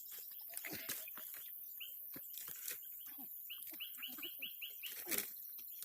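A bird calling in the background: a single short high chirp or two, then a quick run of about seven short falling chirps near the middle, amid scattered light clicks.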